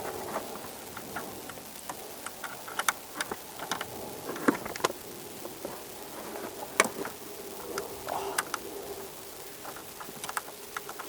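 Irregular light clicks and taps of plastic and metal parts being handled as a taillight is fitted to the car, over a faint steady hum.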